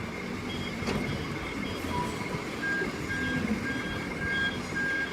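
Back-up alarms on heavy vehicles beeping in a steady rhythm over low engine rumble, with a second alarm at a lower pitch joining about halfway through.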